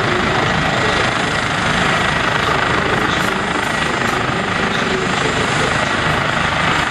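Eurocopter H145 (EC145 T2) twin-turbine helicopter running on the ground with its rotor turning, ahead of takeoff: a steady, loud rush of rotor and engine noise with a thin, high, steady whine over it.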